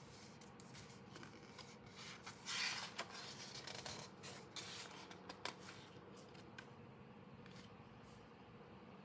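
Faint rustling with light clicks and taps of paper and card being handled, busiest from about two to six seconds in: album packaging and its printed contents being unpacked by hand.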